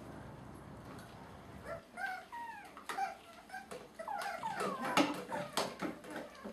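Seven-week-old Havanese puppies yipping and whimpering in short, high, mostly falling cries, starting about two seconds in and turning into several overlapping voices in the second half.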